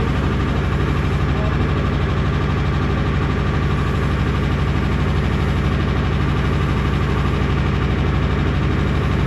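A machine running with a steady low hum, even and unchanging throughout.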